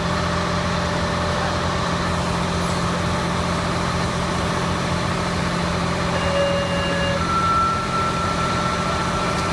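Fire engine running steadily, a constant deep drone. In the second half, two steady high tones sound over it, one after the other, the second lasting a couple of seconds.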